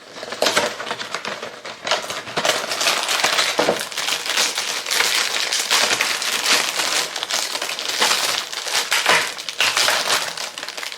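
Plastic cookie packaging crinkling and crackling as it is opened and handled, a dense run of crackles and sharp clicks.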